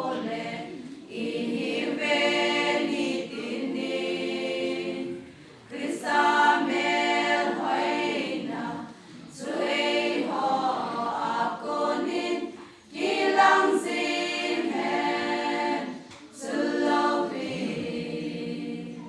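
Women's choir singing a hymn unaccompanied, in phrases of a few seconds with short breaths between them; the last phrase trails off near the end.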